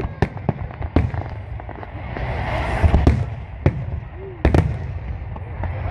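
Aerial fireworks shells bursting in a display: about ten sharp bangs in quick succession over a continuous low rumble, with a denser noisy stretch about two to three seconds in.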